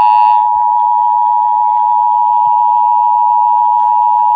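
Emergency Alert System attention signal: the steady two-tone 853/960 Hz alarm, heard through a C.Crane CC Pocket AM radio's small speaker. It marks the start of a Required Monthly Test. A faint upper buzz drops away under half a second in, and the tone holds unbroken after that.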